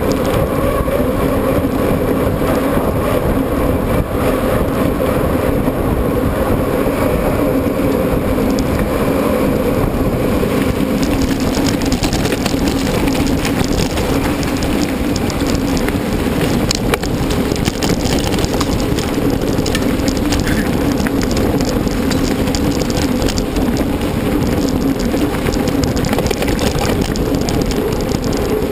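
Steady riding noise of a mountain bike heard from a camera mounted on the bike or rider: a constant rushing of wind on the microphone and tyres rolling, with a low hum running through it. The hiss turns brighter about eleven seconds in, and there are a couple of light knocks a little later.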